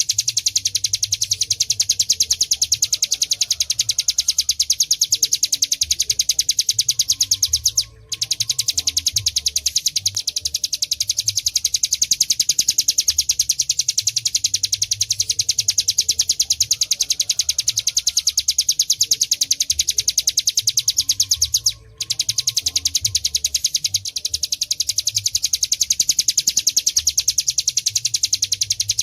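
Ciblek gunung (mountain prinia) singing a fast, unbroken run of high, sharp chip notes, many a second, that stops briefly twice. This is a song track of the kind played to caged birds for them to copy.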